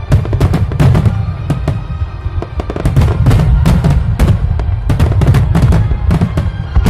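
Fireworks bursting in quick succession, many sharp bangs and crackles over a deep rumble, with music playing along.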